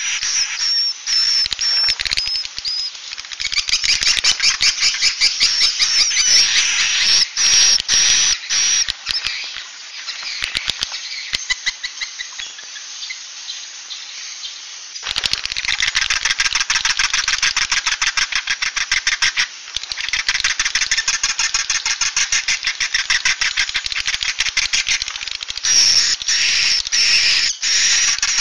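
Edible-nest swiftlets twittering in a dense, rapid, rattling chatter. This is a 'suara inap' lure call, the roosting sound played in swiftlet houses to get the birds to settle and stay the night. The chatter thins out about a third of the way through and comes back in full a few seconds later.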